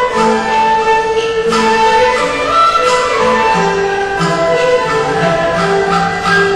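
Instrumental background music: a slow melody of held notes moving step by step over a lower sustained line.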